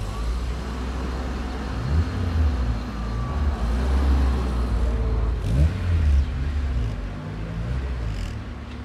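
A car engine rumbling low and revving as the car pulls away, with rises in pitch about two seconds in and again around five and a half seconds in.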